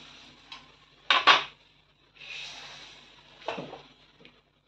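A steel spatula knocks and scrapes against a steel kadai as a coconut-milk egg curry is stirred. There is a sharp double clink about a second in, another knock at about three and a half seconds, and a soft hiss between them.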